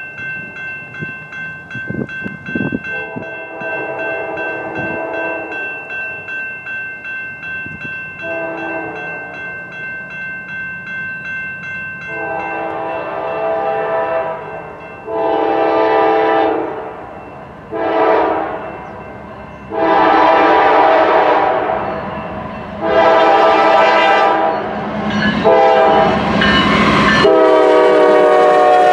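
Grade-crossing bell ringing rapidly while a GE C44-9W diesel locomotive's air horn sounds a series of long blasts and one short one, growing louder as the train approaches the crossing. Near the end the locomotive reaches the crossing and its engine and wheels are heard close by.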